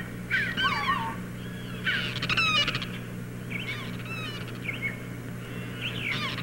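A flock of birds calling in repeated bursts of quick, rising-and-falling chirps, several birds at once, with a steady low hum underneath.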